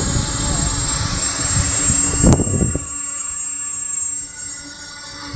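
QAV250 quadcopter's motors and propellers whining steadily as it holds position in strong wind, with wind buffeting the microphone. The buffeting stops about three seconds in after a sharp click, leaving a quieter steady hum of several tones.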